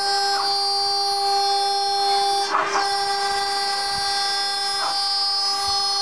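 Small CNC router running, its spindle giving a steady high-pitched whine made of several held tones as the cutter mills pockets into a sign plate. One of the tones stops and restarts a couple of times as the machine's moves change, and there is a brief rasping noise about two and a half seconds in.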